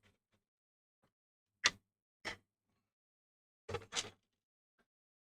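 A few short, sharp clicks and knocks of laptop parts and tools being handled during disassembly: one, then another half a second later, then a quick pair about two seconds in.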